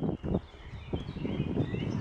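Wind buffeting the microphone and the low rumble of a bicycle riding a dirt forest path, with birds chirping, mostly in the second half.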